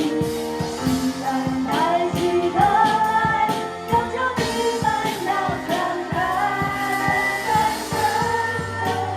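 Live worship music: a singer's wordless melody over sustained keyboard chords and a steady beat.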